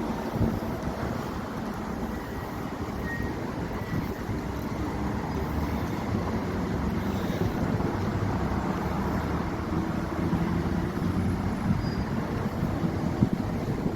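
Steady road traffic rumble with wind buffeting the microphone.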